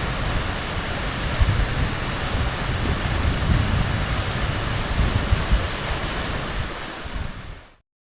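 Waterfall rushing steadily, with wind buffeting the microphone in low gusts. The sound cuts off suddenly near the end.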